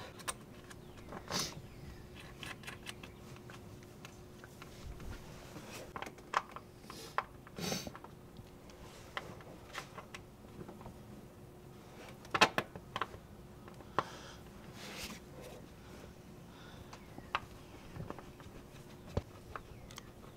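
Hands handling metal engine parts and plastic connectors under the hood: scattered small clicks and knocks, the sharpest about 6, 8, 12 and 15 seconds in, over a faint steady hum.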